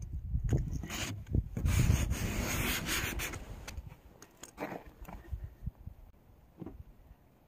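Pen tip scraping letters into frost on a van's windshield glass: a run of short, scratchy strokes that stops about three and a half seconds in, followed by a couple of faint scrapes.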